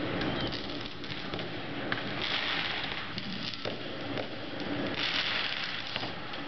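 Fireworks going off overhead: continuous rapid crackling and popping from aerial bursts, swelling twice, with a few sharper bangs.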